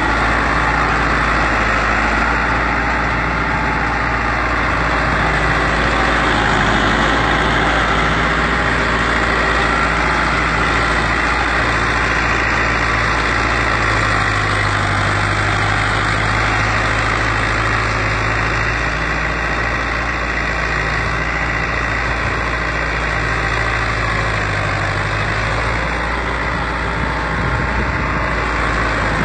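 Tractor engine running steadily while pulling a plough, with a low hum that grows stronger for several seconds around the middle.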